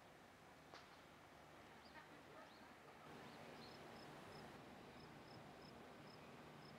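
Near silence: faint outdoor ambience with a few soft bird chirps, then from about halfway a faint high chirp repeating about three times a second.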